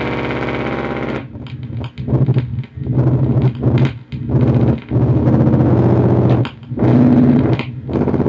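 Electronic feedback noise from a digital reverb being manipulated: a dense buzzing drone that, about a second in, breaks into a choppy, stuttering low hum with repeated sudden dropouts.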